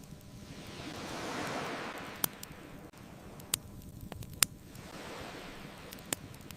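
Ocean waves washing in, one swell rising and falling in the first two seconds and a smaller one about five seconds in, over a wood bonfire's sharp crackles and pops, the loudest about four and a half seconds in.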